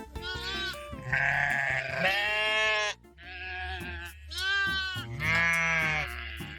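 Farm animal bleating: about six wavering, quavering calls in quick succession, each half a second to a second long.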